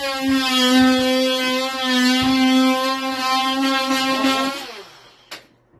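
Handheld power drill running at a steady whine with small dips, winding down and stopping about four and a half seconds in, followed by a couple of sharp clicks.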